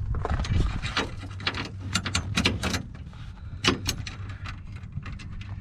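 Irregular sharp metallic clicks and knocks of hand tools and bolts being handled while the brace is fitted, over a steady low hum.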